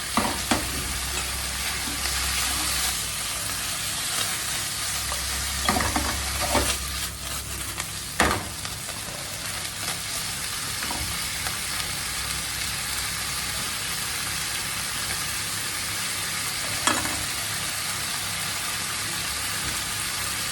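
Chicken liver sizzling as it fries in olive oil in a pan, stirred now and then, with a few sharp knocks of the utensil against the pan, the loudest about eight seconds in.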